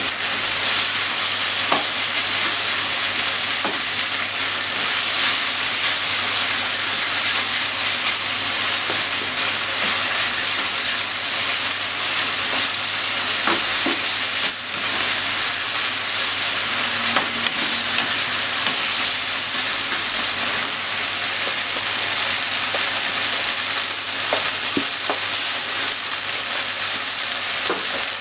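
Chicken, onion and corn with ketchup sizzling steadily in a nonstick frying pan while being stir-fried with a spatula, with occasional short scrapes and taps of the spatula against the pan.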